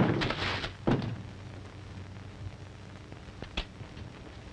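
A heavy thump and scuffle as a man is shoved into a wooden door, followed by a second sharp knock about a second in and a small knock near the end, over the steady hiss and hum of an old film soundtrack.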